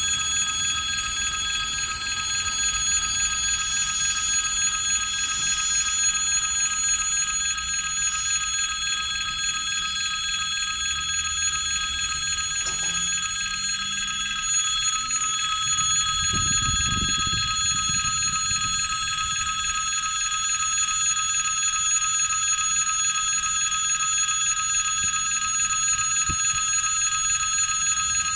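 Electric warning bell of a pedestrian railway crossing ringing continuously while the red pedestrian light is on, signalling that a train is approaching and the crossing is closed. A brief low rumble comes in about halfway through.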